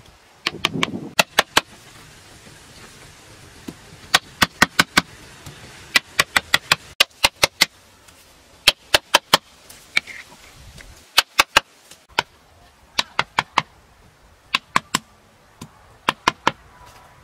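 Quick runs of sharp, hard taps, three to six at a time and several runs in all, as a hand-held stone knocks pebbles down into a wet mortar bed.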